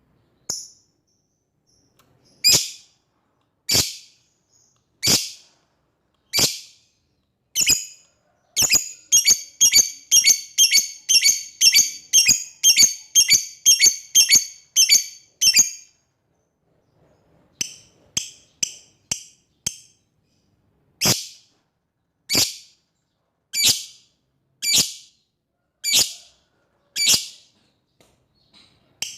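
Lovebird calling to a rival with short, sharp, high-pitched calls. At first single calls come about a second apart. About a third of the way in they speed up into a fast run of about three calls a second that lasts some seven seconds. After a short pause, spaced single calls come again.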